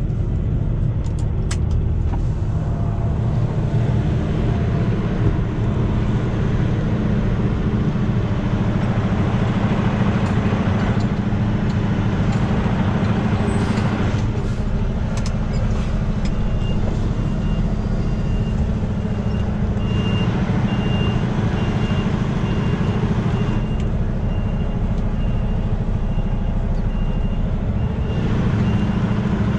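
Semi truck's diesel engine running steadily at low revs, heard from inside the cab while the rig reverses. A high, evenly repeating reversing beeper starts about halfway through.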